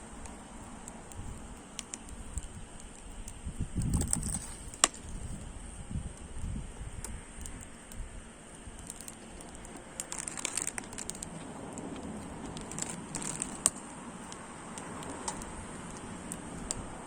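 Wood fire crackling in a stainless-steel shichirin brazier: scattered small pops over a faint steady hiss, with sharper pops about five seconds in and again near fourteen seconds.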